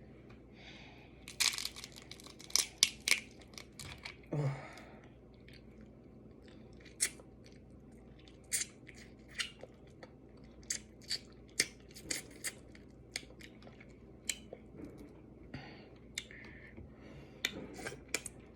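Close-up eating sounds of seafood: crunching and chewing, with a burst of sharp cracks and smacks early on, then single sharp mouth clicks and smacks about once or twice a second. A short falling hum comes about four seconds in.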